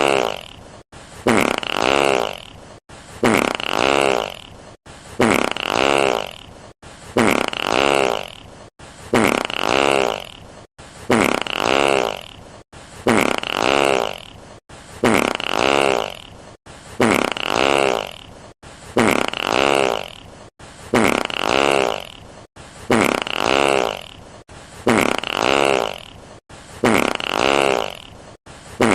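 Fart sound effect: a sudden, loud, buzzing fart whose pitch wavers as it dies away, about a second and a half long, played again and again roughly every two seconds.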